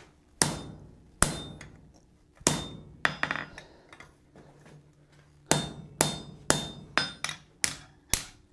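Hand hammer driving a half-inch square mild-steel drift through a hot slot-punched bar on an anvil. A few separate blows come in the first three seconds, then after a short pause a steady run of blows about two a second, each with a short metallic ring.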